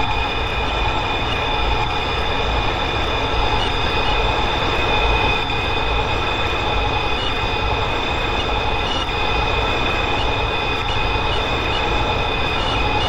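New York City subway train running between stations, heard from inside the car: a steady rumble of wheels on track with steady high-pitched squeal tones above it.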